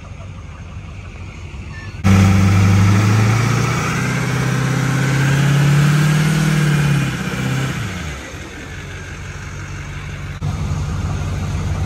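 Race pickup truck's engine revved and held at high revs for about five seconds, its pitch creeping upward, then dropping back toward idle.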